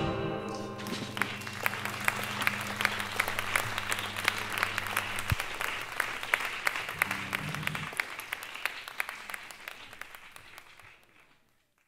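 Theatre audience applauding, with a low held tone underneath for about the first five seconds. The applause fades away to silence near the end.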